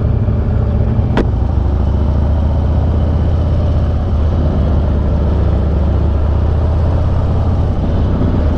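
Harley-Davidson Dyna V-twin engine running steadily at low speed through a Bassani Road Rage 3 exhaust, with one sharp click about a second in.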